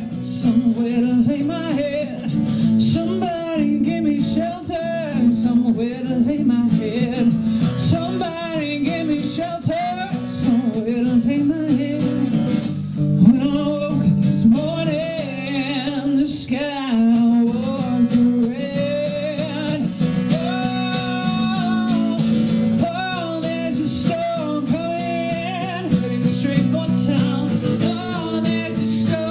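A woman singing a slow song, accompanied by acoustic guitar.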